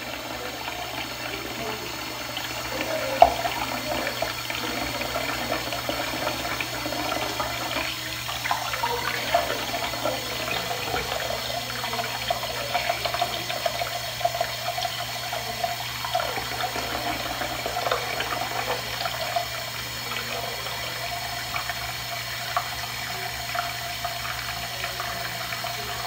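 Bathroom sink faucet running steadily into a basin already part full of water, with hands splashing and sloshing in the water in many small irregular splashes. A single louder splash comes about three seconds in.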